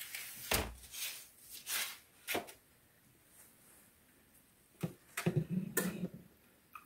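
Foil-lined metal baking sheets being handled and set down on a glass-top stove: a few scattered clicks and knocks, then a lull, then more knocks near the end.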